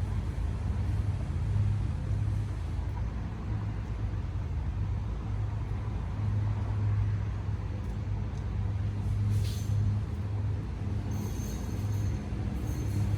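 A steady low mechanical hum with a constant pitch, plus a few faint high-pitched sounds near the end.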